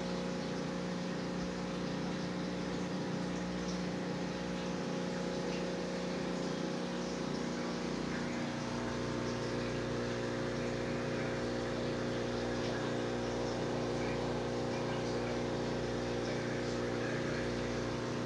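Aquarium pump and filter running: a steady electric hum with several tones over a hiss of moving water. The low note of the hum shifts about halfway through.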